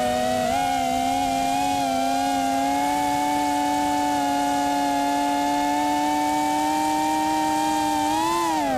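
A small quadcopter's electric motors and propellers, heard through its onboard camera, whining steadily in a pitch that creeps slowly upward. Near the end the pitch briefly rises and then drops before the sound cuts off.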